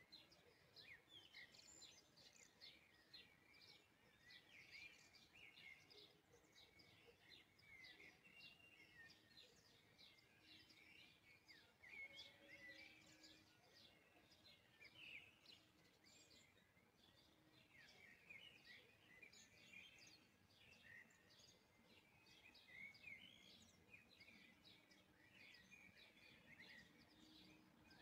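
Faint birdsong: birds chirping in quick, short notes over a low background hiss.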